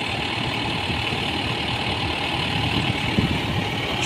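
Tractor engine running steadily under load, driving a groundnut thresher through its power take-off, with the thresher's drum churning in a continuous even drone.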